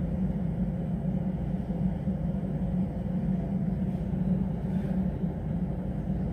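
A steady low hum of background noise, unchanging, with no other sound standing out.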